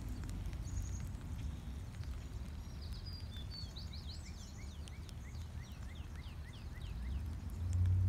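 A songbird sings a run of short down-slurred notes that step lower in pitch and slow as they go, over a steady low rumble and faint scattered ticks of light rain. Near the end a deep steady hum swells up and becomes the loudest sound.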